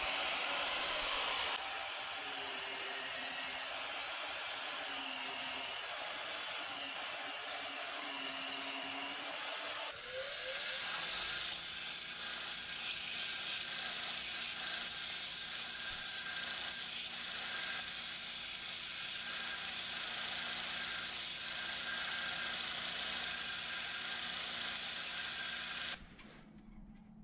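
Small band saw cutting steel for about the first ten seconds, its pitch wavering as the blade bites. It gives way to a belt-grinder attachment on a bench grinder, running with a steady hum and hiss as a small steel part is ground against the belt. The grinding cuts off sharply near the end.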